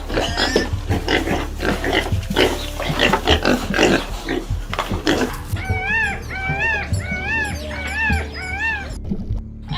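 Pigs grunting and squealing in a rough, busy run of calls, then five high arched squeals in a row, one about every half second, in the second half.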